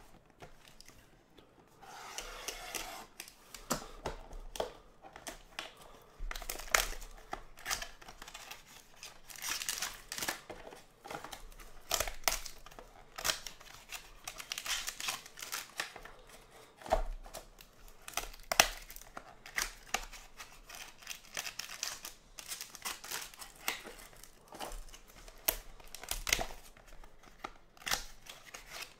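Clear plastic shrink-wrap on a Topps Museum Collection card pack being torn off and crinkled by hand, in irregular bursts of sharp crackles.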